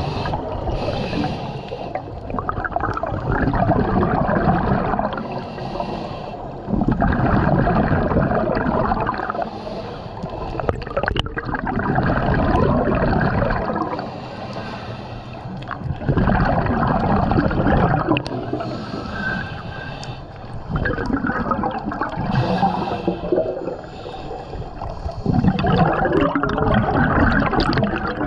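Scuba diver breathing through a regulator underwater: a rush of bubbling exhalation about every four to five seconds, with a thin hiss of inhalation in between.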